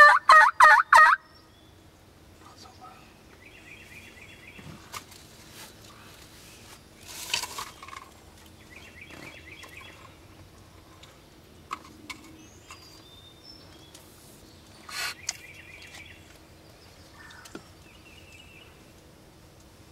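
A wild turkey gobbler gobbling loudly in the first second, a fast rattling call. After that come fainter bird calls and a few light knocks.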